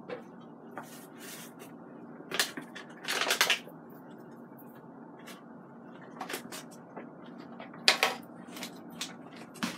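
Paper taco seasoning packets rustling, crinkling and being shaken out, in short irregular bursts, the longest about three seconds in and the sharpest near the end.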